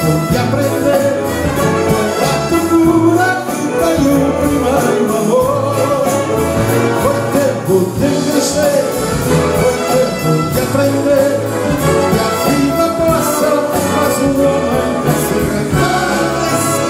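Live music: a male singer accompanied by a concert band of brass and woodwinds playing a popular song with a steady beat.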